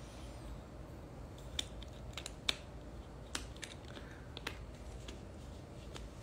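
A few light, irregular taps and clicks, like fingertips tapping a phone's touchscreen, over a low steady room hum.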